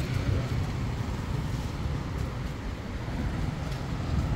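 Street ambience: a steady rumble of passing road traffic.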